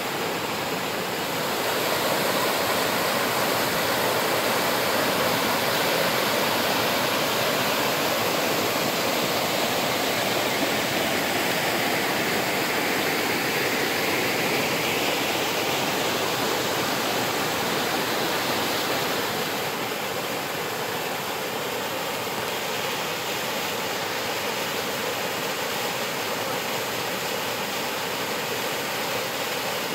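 Waterfall: a steady rush of falling water, with no rhythm or distinct splashes. It grows a little louder about two seconds in and drops back slightly about two-thirds of the way through.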